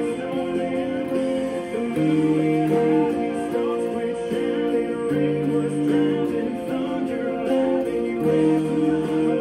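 Epiphone Les Paul electric guitar playing the chords of a country song along with a recording of the song, a man singing over the band; the chord changes every two to three seconds.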